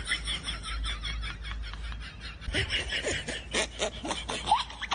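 Laughter after the joke: quick, repeated bursts of snickering and chuckling.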